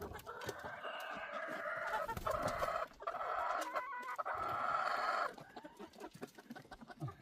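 Rooster crowing in the chicken coop: one long drawn-out crow that starts just after the beginning, dips briefly about three seconds in and ends about five seconds in.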